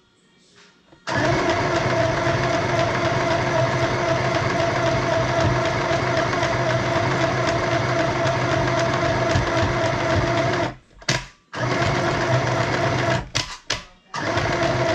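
Compact electric sewing machine stitching through fabric. It starts about a second in and runs steadily for about ten seconds, then stops and restarts in several short spurts near the end.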